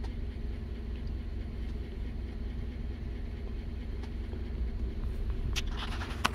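A GMC Sierra's 5.3-litre direct-injected V8 idling steadily while the scan tool runs an automated injector balance test. A couple of brief clicks come near the end.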